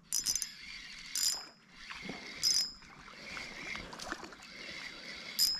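PROBEROS size-2000 spinning reel being cranked while playing a hooked fish, with four short high-pitched bursts from the drag giving line as the fish pulls.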